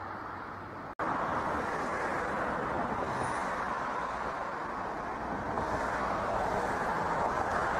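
Jet engines of a four-engine Airbus A340 at take-off thrust during its take-off roll: a steady, loud engine noise that breaks off for an instant about a second in and then comes back louder.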